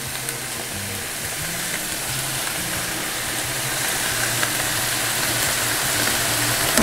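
Sliced peppers, onion and tomato sizzling in a frying pan as pieces of raw fish are laid in, the sizzle slowly growing louder.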